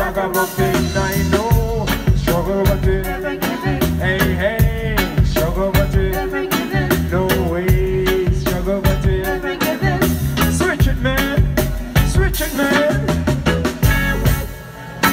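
Reggae band playing live, with a steady drum beat under a melodic line.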